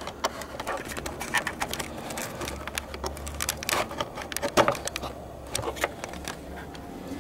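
Irregular plastic clicks and knocks from handling a car tail light and pressing and pulling its wiring connector plug. The strongest knock comes about halfway through.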